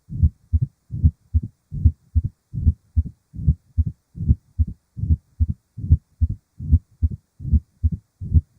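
Recorded human heartbeat: steady paired lub-dub heart sounds, a little over one beat a second.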